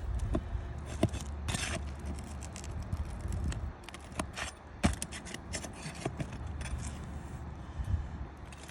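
Irregular scraping with sharp clicks and taps from hand work on asphalt roof shingles, over a low rumble that fades after the first few seconds.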